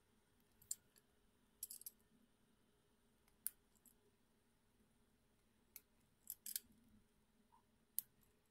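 Near silence broken by several short, faint clicks and taps at irregular intervals, typical of small hard objects being handled on a tabletop.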